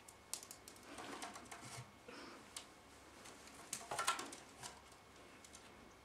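Cockatiel's claws and beak tapping and scratching on a wooden chest of drawers and a hand as it steps up onto a finger: faint scattered clicks, with a denser burst of taps and scuffling about four seconds in.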